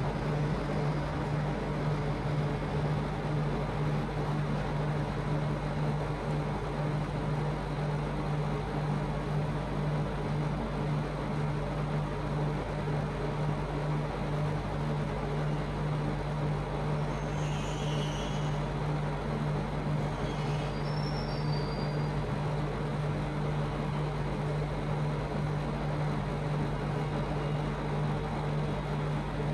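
A steady low machine hum over a continuous noisy background, with a few faint light clinks about two-thirds of the way through.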